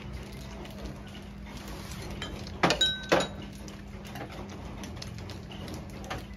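Two sharp clinks of tableware about half a second apart near the middle, the first leaving a brief ring, over a steady low hum and hiss.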